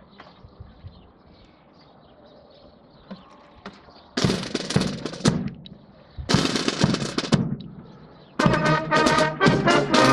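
Military brass band with snare drum and cymbals playing a march. After about four quiet seconds the full band comes in loud in two short phrases about a second apart, then plays on without a break.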